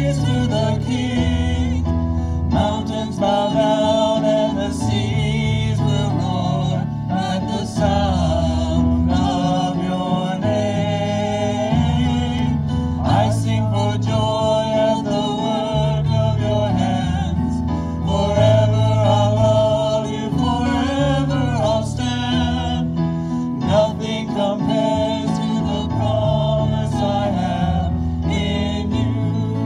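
A gospel hymn sung with instrumental accompaniment: voices carry the melody over a steady bass line.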